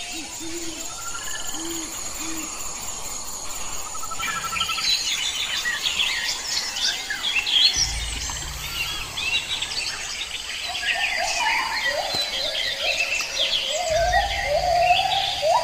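A chorus of wild birds chirping and calling, thickening after a few seconds. There are three low hoots near the start and a run of repeated lower calls near the end.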